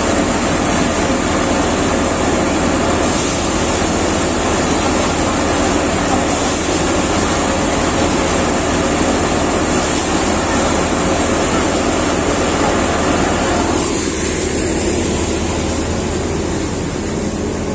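Tractor-driven paddy thresher running steadily while paddy bundles are fed into its drum: a dense, continuous mechanical rush over a steady low hum. About 14 seconds in, the sound grows duller and a little quieter.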